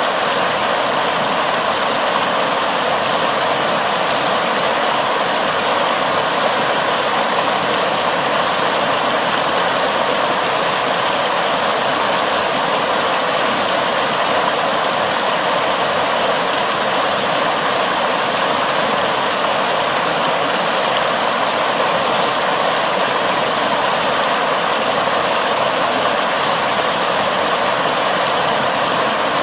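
Floodwater rushing and churning in white rapids as it spills over the edge of a concrete slab, a loud, steady, unbroken rush of water.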